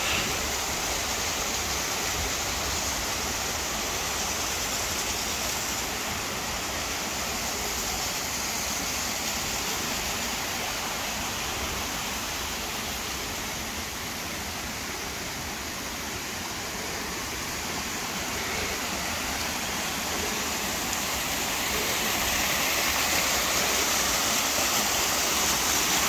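Small waterfall cascades on a mountain stream: a steady rush of water over rocks that grows louder near the end.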